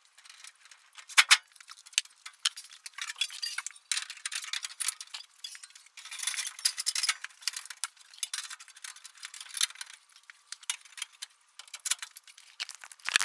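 Handling noise: a string of light clicks, clinks and rustles, with a sharp click about a second in and a denser patch of rustling around six to seven seconds.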